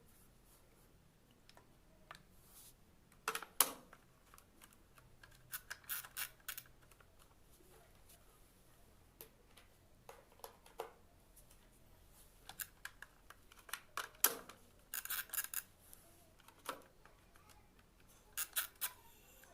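Irregular sharp clicks and short scraping rattles of small hard parts being handled, in separate clusters, over a faint low hum.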